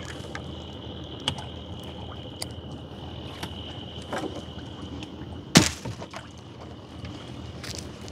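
Gill net being hauled hand over hand into a wooden boat, with scattered knocks and clatter against the hull; a sharp knock about five and a half seconds in is the loudest. A steady high-pitched tone runs underneath.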